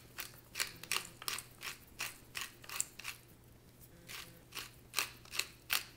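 Pepper mill grinding black pepper: a run of short crunching clicks, several a second, easing off for a moment about halfway through and then picking up again.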